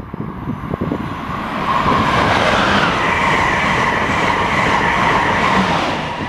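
Amtrak Acela Express high-speed electric trainset passing at speed: a rush of wheel and air noise builds about a second in and carries a steady high whine. It stays loud through the middle and eases near the end as the rear power car goes by.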